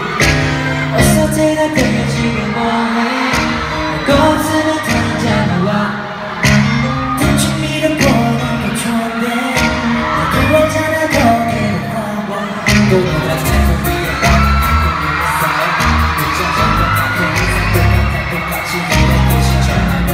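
A K-pop boy group singing a pop song live on a concert stage, several male voices over instrumental accompaniment, with deeper bass notes coming in about two-thirds of the way through.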